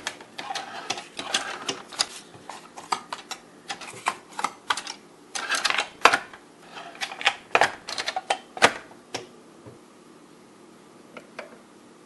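Hard plastic clicks, clacks and rattles from a Keurig single-cup coffee brewer being handled: its handle and lid lifted and pushed down over the K-cup holder, with a brief scraping cluster about six seconds in. The clatter thins out after about nine seconds to a few clicks from the buttons.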